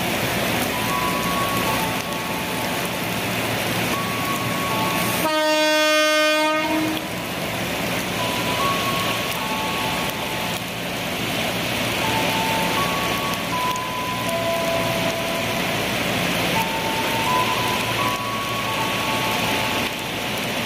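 Heavy rain falling steadily. A KRL Commuter Line electric train sounds its horn once for about a second and a half, around five seconds in, as it departs.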